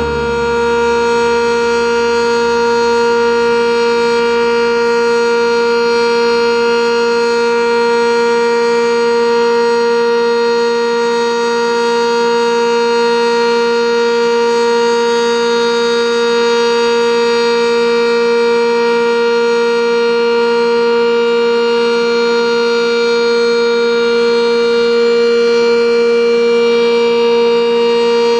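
Sentry 10V outdoor warning siren sounding its steady alert signal: one loud, unchanging note with strong overtones, held without rising or falling.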